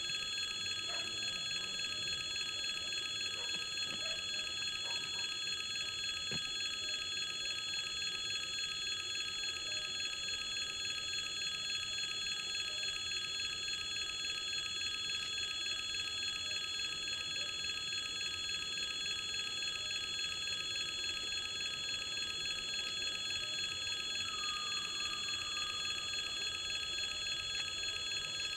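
Russian railway level crossing's warning alarm ringing steadily without a break, a high electric ring that signals an approaching train.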